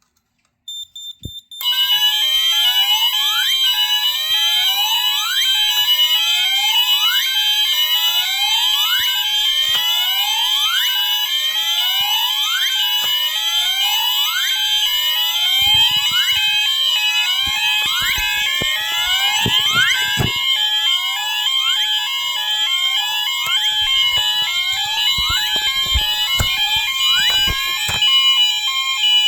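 Fire alarm sounders on a Moose Z900 alarm panel's bell circuit going off together after a few short keypad beeps: a rising whoop about once a second over steady and pulsing alarm tones. Near the end the whoop stops and the pulsing tones carry on.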